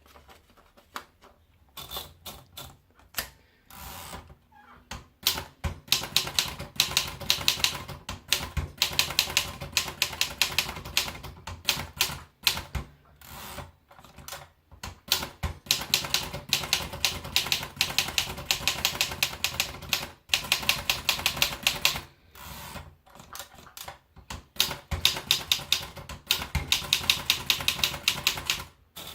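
Erika 5 TAB manual portable typewriter being typed on: rapid runs of key strikes, with short pauses between the runs.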